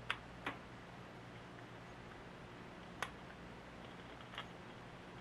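Four light, sharp clicks and taps of small metal parts and tools being handled during hands-on reassembly work, over a faint, steady low hum.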